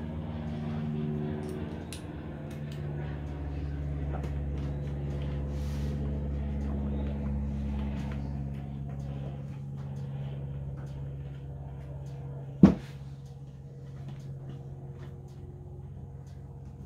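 Small clicks and taps of a hand tool working at the corner of a wooden stretcher frame, with one sharp knock about three-quarters of the way through, over a steady low background hum.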